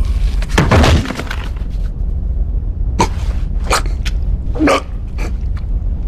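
A crash of breaking glass about half a second in, its debris trailing off over the next second, over a steady low rumble. Several short sharp sounds of a struggle follow, a few seconds in.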